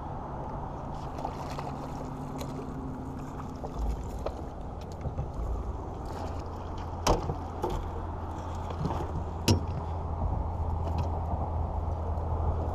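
A fish being landed with a landing net beside a small aluminium boat: splashing and scattered clicks, with a couple of sharp knocks of net and fish against the hull in the second half, over a steady low hum.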